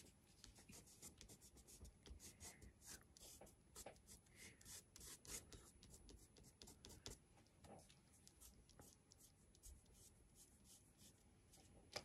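Fingertips rubbing crayon into drawing paper, smudging white into blue to blend it: faint, irregular scraping strokes.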